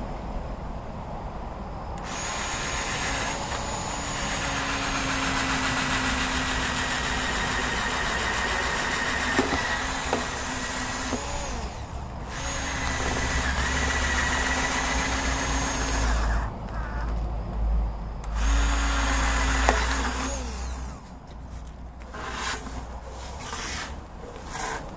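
Corded electric drill boring a drain hole through a car tyre's rubber, its motor running steadily in three stretches of several seconds with short pauses between, then stopping about 21 seconds in.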